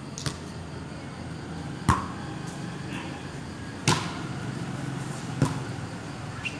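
A volleyball being hit back and forth in a rally: a series of sharp smacks roughly every two seconds, the loudest about two and four seconds in.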